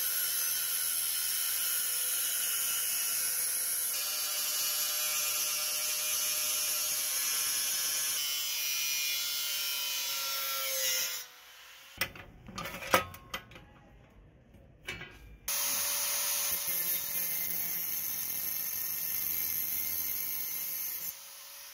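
Electric angle grinder with an abrasive disc grinding the steel edge of a shovel blade: a steady hiss of the disc on metal over a high motor whine. About halfway through the grinding stops for a few seconds, with a few sharp knocks and clicks, then starts again and runs until just before the end.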